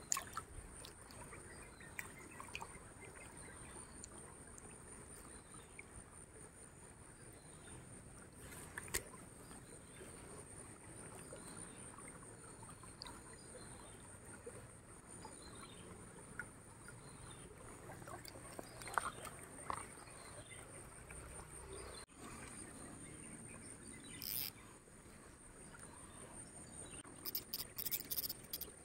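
Shallow stream water sloshing and splashing around a landing net while a small tilapia is handled and let go, with scattered sharper splashes and knocks, a cluster of them near the end. A steady high-pitched buzz runs underneath.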